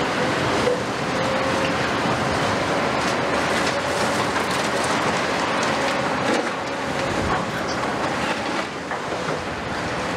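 Heavy diesel crawler excavators running together: a dense steady engine and hydraulic drone with a faint held whine, dotted with scattered small clanks and knocks of steel and rubble.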